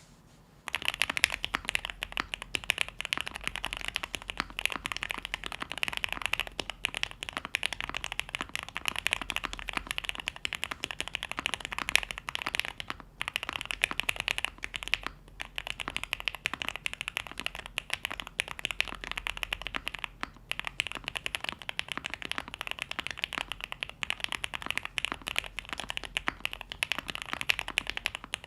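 Continuous typing on a QK65 mechanical keyboard with lubed JWK Black linear switches on a POM plate and ABS doubleshot keycaps: a dense stream of quick key clacks that starts about a second in, with a couple of brief pauses.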